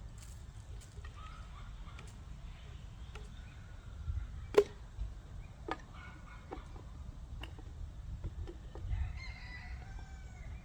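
Free-range chickens calling, with a longer drawn-out call near the end. Several sharp knocks come in the middle, the loudest about four and a half seconds in.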